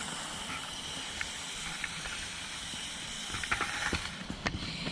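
Lego RC crawler's small electric motors and plastic drivetrain running with a steady whirring hiss, and a few sharp plastic clicks and knocks about three and a half to four and a half seconds in.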